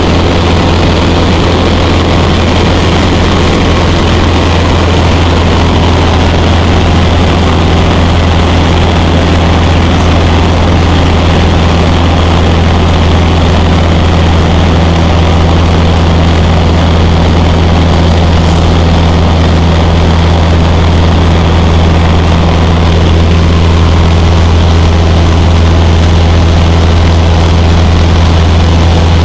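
Single-engine piston light airplane in cruise, heard from inside the cabin: a loud, steady engine and propeller drone with a strong low hum over a constant rushing noise.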